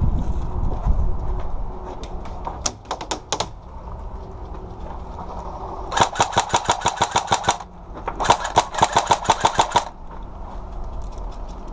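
Airsoft gun firing: a few scattered single shots, then two full-auto bursts of about ten shots a second, each lasting under two seconds.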